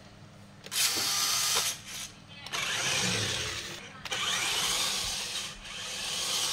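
Toy 6x6 RC truck's small electric motor and plastic gearbox whirring as it drives across a hard floor, in three runs of about a second or more with short stops between.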